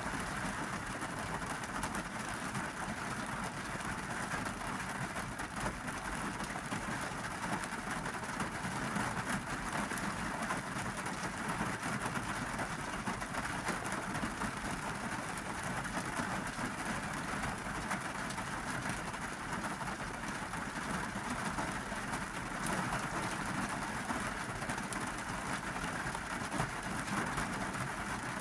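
Steady rain pattering on a car's roof and windows, heard from inside the cabin, with a low rumble underneath.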